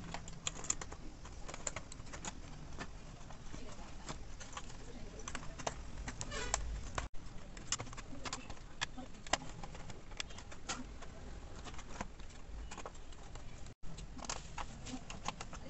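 Scattered small clicks and taps of a screwdriver and copper wires working the screw terminals of a plastic modular extension box. Faint bird cooing is in the background.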